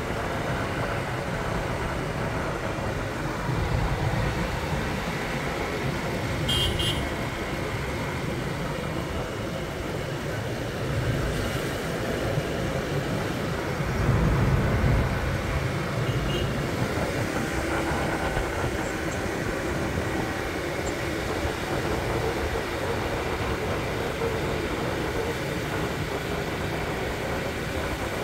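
Steady wind rush and road noise from riding a motorbike, with its engine running underneath. A louder low rumble swells about halfway through.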